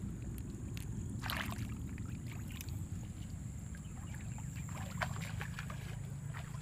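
Steady low rumble with a faint high-pitched whine above it, and scattered small clicks and squelches from hands and feet working in wet mud.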